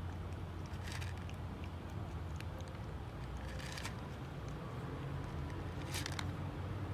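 A cat crunching dry kibble: a few short bursts of crisp chewing, about a second in, again around four seconds in and again near the end, over a steady low hum.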